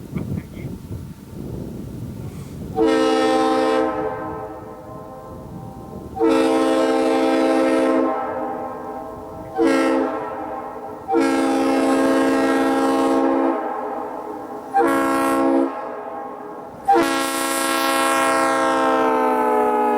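Leslie RS-3L three-chime train horn blowing a series of chord blasts over a low rumble: two long, a short and a long (the grade-crossing pattern), then a short and a final long blast whose pitch falls slightly as it passes.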